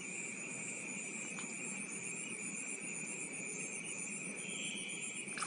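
Night insect chorus: a steady high trill, with a faster, very high chirping pulsing above it.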